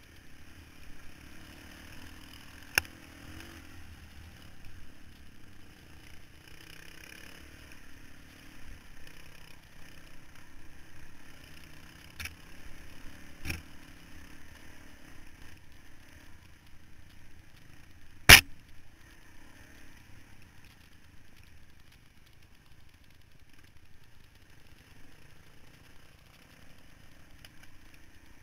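Suzuki DR-Z400 dirt bike's single-cylinder four-stroke running along a rocky, rutted trail, heard from a camera mounted on the bike, with engine and ride noise throughout. Four sharp knocks as the bike jolts over rocks and ruts, one much louder than the rest about two thirds of the way through.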